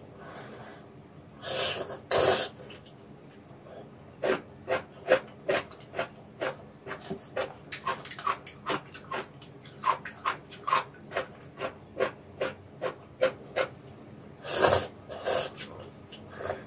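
Close-miked eating of warm vegetable noodle soup: noodles slurped twice, about one and a half seconds in and again near the end, with quick wet chewing and mouth clicks at about two to three a second in between.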